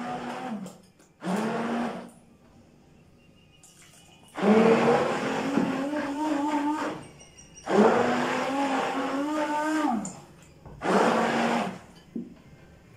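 Hand-held stick blender puréeing boiled carrots and apricots in a bowl, switched on and off in four short runs of one to three seconds each. The motor's pitch rises as each run starts.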